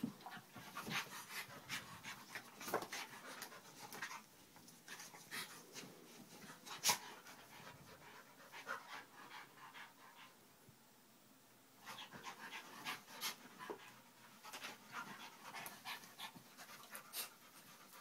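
Two dogs, a Staffordshire bull terrier-type and a husky-type, play-fighting: heavy panting mixed with irregular scuffling and short sharp sounds, with one loud sharp click about seven seconds in and a brief lull of a couple of seconds past the middle.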